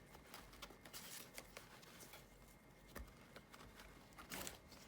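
Faint, scattered clicks and rustles of a 3D-printed plastic MOLLE mount and its bungee cord being handled.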